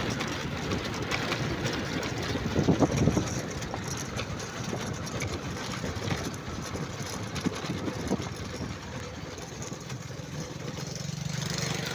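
A vehicle engine running steadily under a rough, noisy rumble of travel, with a few louder jolts about three seconds in.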